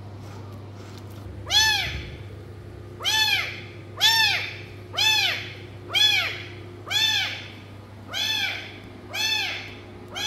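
Tiny kitten mewing loudly over and over, about nine cries roughly a second apart, each rising then falling in pitch: a lost kitten crying for its mother. A faint steady hum sits underneath.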